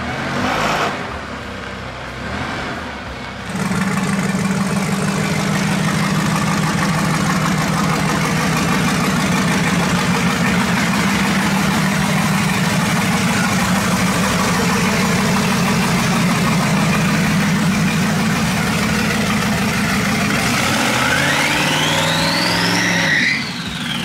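Twin-turbo LS V8 in a Fox-body Mustang idling steadily, starting a few seconds in. Near the end the engine is revved and a whistle rises and then falls, the turbos spooling up and back down.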